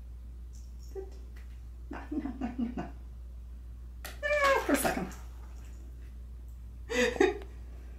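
Domestic cat meowing several times. The loudest call, about four seconds in, is a long meow that falls in pitch.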